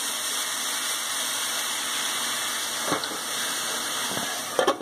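Salmon fillet sizzling in a hot non-stick frying pan as lemon juice is squeezed onto it. A few sharp clinks just before the end, as a glass lid goes onto the pan.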